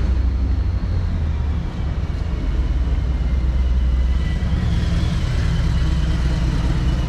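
Street traffic: vehicle engines running, with a motorcycle passing close by near the end.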